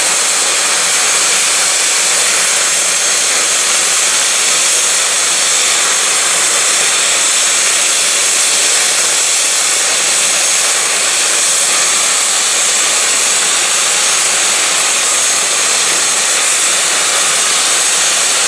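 Airbus H145 D3 rescue helicopter running on the ground with its rotors turning: a steady, loud turbine whine from its two Safran Arriel 2E turboshaft engines over a constant rushing rotor noise, with no change in pitch or level.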